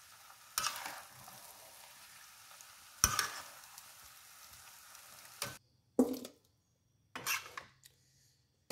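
Sliced onions and meat sizzling in a hot metal wok, stirred with a metal spatula that scrapes the pan twice. About five and a half seconds in the sizzle stops abruptly, and a few separate knocks follow.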